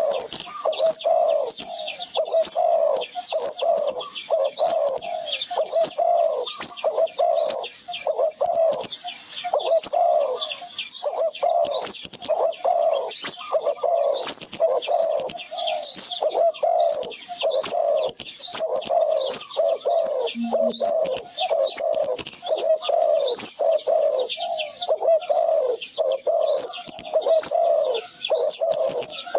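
Birds calling continuously: a quick, steady run of short rising high chirps over a lower, repeated cooing note.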